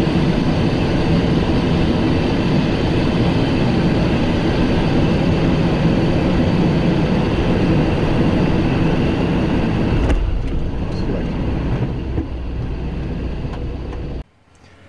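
Cockpit noise of a Cessna Citation XLS business jet landing: steady engine and airflow noise on short final. About ten seconds in the sound changes abruptly to a deeper rumble as the wheels touch down and roll out on the runway. It cuts off suddenly near the end.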